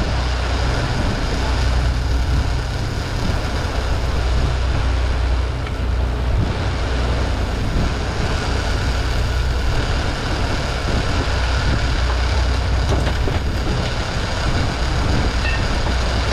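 Charter fishing boat's engine running steadily, a low hum with a steady hiss over it.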